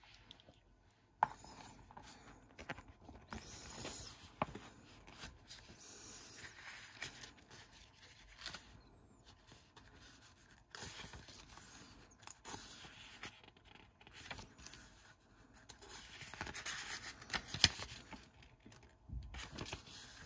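Pages of a small paperback guidebook being turned and handled: soft, faint paper rustling and riffling, with a few light ticks and taps.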